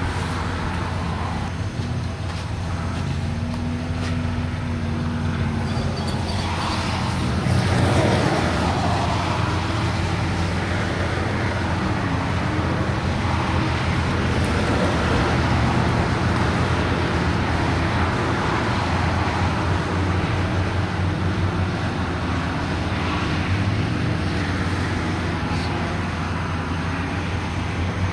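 Full-size Ford Broncos' engines revving as the trucks drive through mud and shallow water, their pitch rising and falling several times over a steady rumble. Loudest about eight seconds in.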